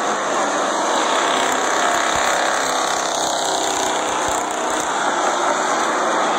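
Purestock stock cars racing around a short oval: a steady, loud wash of engine noise as the field circulates and passes.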